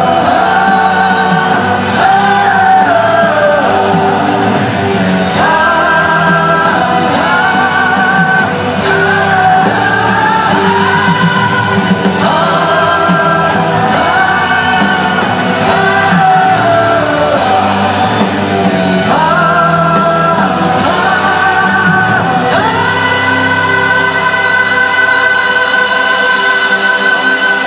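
Live concert music: the wordless 'ah ah ah' refrain of a pop-rock song, sung by many voices together over a band. A long high note is held near the end.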